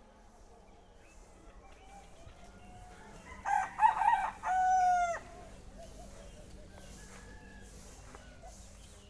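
A rooster crowing once, about three and a half seconds in: a few short broken notes, then a long held note that drops at the end.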